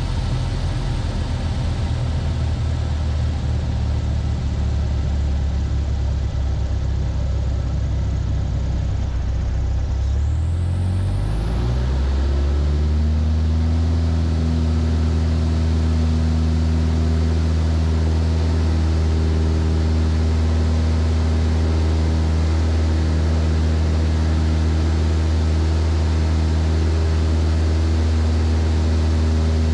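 Van's RV-7's piston engine and propeller heard from inside the cockpit, running steadily at low power, then rising in pitch about ten seconds in as power is brought up, and running steadily and louder at the higher setting for the rest of the time.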